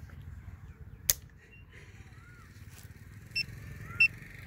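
A single .22 LR rifle shot, one sharp crack about a second in, fired in a chronograph test. Near the end, two short high electronic beeps half a second apart.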